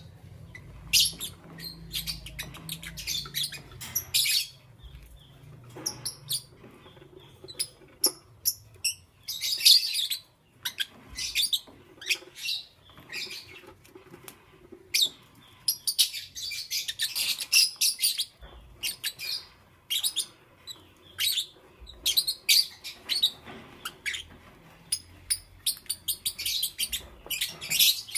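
Pet lovebirds chirping: rapid, high-pitched chirps in dense clusters separated by brief pauses.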